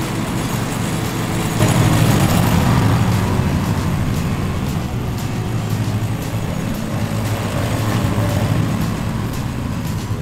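Zero-turn ride-on lawn mower's petrol engine running steadily. It grows louder about a second and a half in as the mower moves off across the grass.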